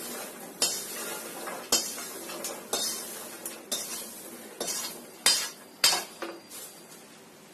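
Popcorn being emptied from a pot into a plate: a run of sharp metal knocks and clinks, about one a second, over the rustle of sliding popcorn. The knocks are loudest around five to six seconds in and die away near the end.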